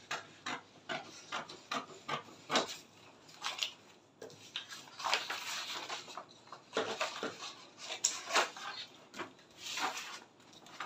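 Scissors snipping through a paper pattern in a run of irregular cuts, mixed with paper rustling and crinkling as the sheets are lifted and moved.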